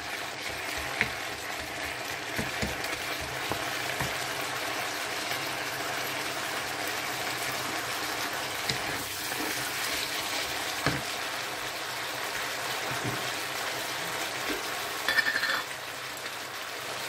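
Chinese kale stir-frying in a hot wok, a steady sizzle, with occasional light knocks of a wooden spatula against the pan. A short, sharper rattle comes about fifteen seconds in.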